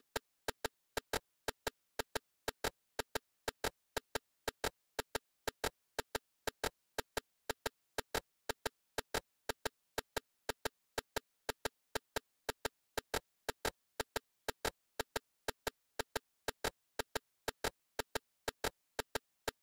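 A sharp, dry click repeating about three times a second, fairly evenly, with dead silence between the clicks.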